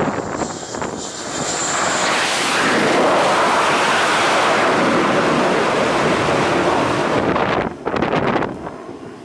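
Carrier jet aircraft engines at high power: a thin high whine at first, then a loud, steady rushing noise that swells about two seconds in and drops away suddenly near the end.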